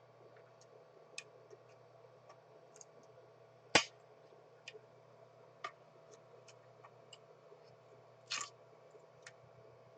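Steady faint hum with scattered small clicks and ticks, one sharp, loud click about four seconds in and a short scrape a little after eight seconds.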